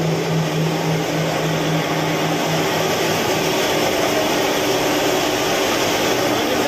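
Steady, loud machinery noise of a thermal power plant, with a low hum that fades out about two and a half seconds in.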